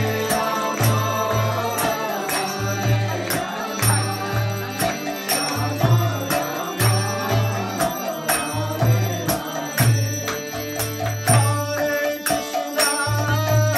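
Devotional kirtan: a group singing a mantra together over a harmonium's held chords, with steady deep beats of a mridanga drum and the regular sharp strokes of hand clapping.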